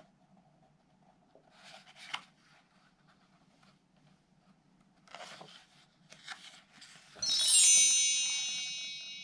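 A rising run of small high chimes, like a mark tree, comes in about seven seconds in and rings on, fading over about two seconds. Before it, faint rustles of a picture book's paper pages being handled.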